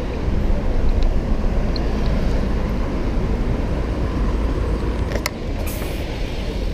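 City street traffic: a steady rumble of passing cars, with a sharp click a little past five seconds in and a brief hiss just after it.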